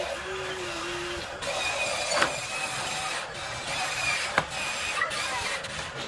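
Small electric motors of a radio-controlled Huina toy excavator whirring as it drives on its tracks, with two sharp clicks about two seconds apart.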